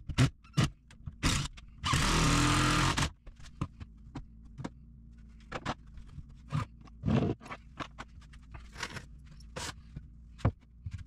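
Cordless drill running for about a second, a couple of seconds in, driving a screw into a 2x4 cabinet frame, with a shorter burst right at the start. Scattered knocks and clicks of wood and tools being handled fill the rest.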